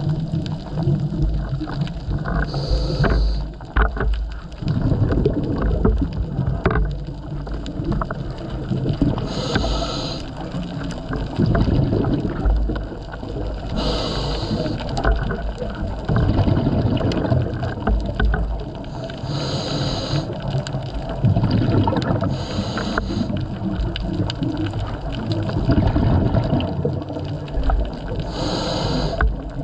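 Scuba diver breathing through a regulator underwater. A short hiss on each inhale is followed by a longer low gurgle of exhaled bubbles, five breaths at uneven spacing.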